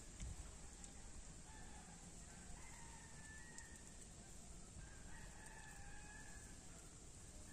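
Faint rooster crowing a few times over a quiet, steady background hiss.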